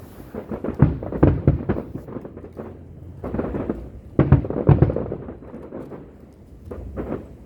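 Fireworks display: a rapid series of aerial shell bursts booming and crackling, with a deep rumble carrying between them. The loudest bangs come in clusters about a second in and again around four to five seconds in.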